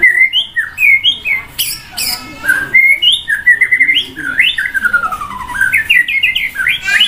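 White-rumped shama (murai batu) singing a loud, fast and varied song: quick slurred whistles gliding up and down and rapid runs of repeated notes, one phrase straight after another.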